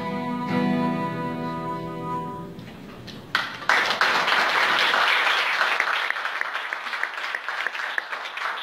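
A violin and an acoustic guitar hold the final notes of a song, which fade away; about three seconds in, an audience breaks into applause that carries on.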